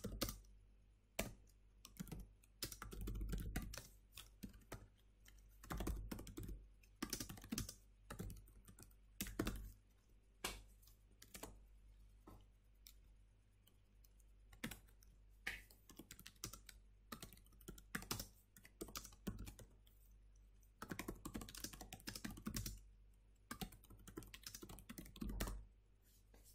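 Typing on a computer keyboard: runs of quick key clicks in several bursts with short pauses between them.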